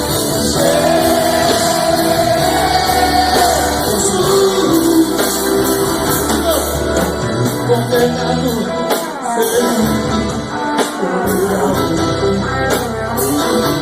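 Live gospel band playing with a singer holding long notes; one note is held for about three seconds near the start.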